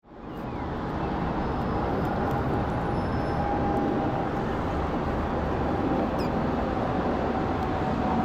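Boeing 787-9 Dreamliner passing low overhead on its approach to land: a steady jet roar with a faint steady whine in it, fading in over the first second.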